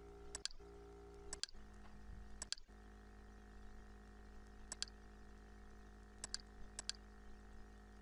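Computer mouse button clicks, about six spread irregularly, each a quick press-and-release double click, over a faint steady electrical hum.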